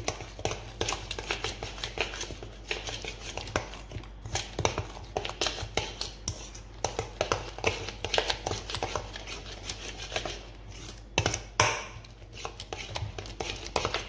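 A metal spoon stirring thick yogurt and spice paste in a bowl: rapid clicks and scrapes against the bowl, several a second, with a few louder knocks about eleven seconds in.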